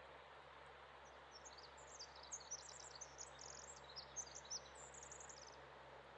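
A small songbird singing faintly: a high-pitched, rapid jumble of chirps and trills lasting about four seconds, starting about a second in, over a quiet background hiss.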